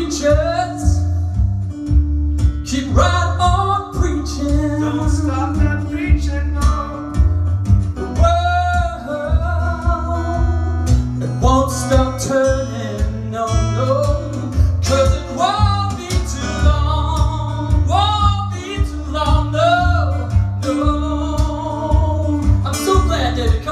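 A male voice singing over acoustic guitar, with a steady thumping bass rhythm.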